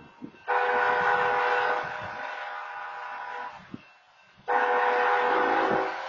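A BNSF locomotive's air horn sounding two long chord blasts, the opening of the long-long-short-long grade-crossing signal. Each blast comes in loud and holds on at a lower level; the first starts about half a second in, the second about four and a half seconds in.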